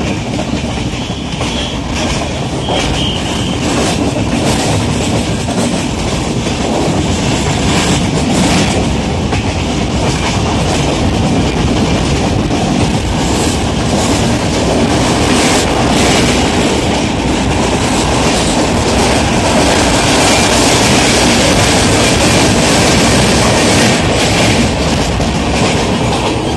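Passenger train running at speed, heard from a carriage window: a steady rumble of wheels on the track with the clickety-clack of rail joints. It grows somewhat louder about two-thirds of the way through.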